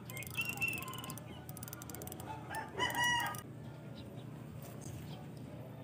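A rooster crowing: one drawn-out call of about a second, loudest about three seconds in, over a steady low hum.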